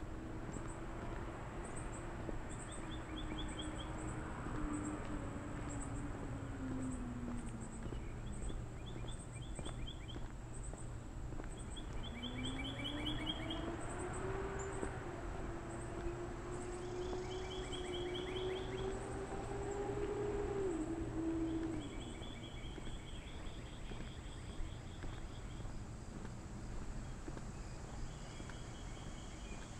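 Summer outdoor ambience of insects: a steady high-pitched chirping, one or two chirps a second, with short rapid trills every few seconds. Under it a low drone slides down in pitch over the first eight seconds, then rises again about twelve seconds in and holds until it stops about twenty-two seconds in.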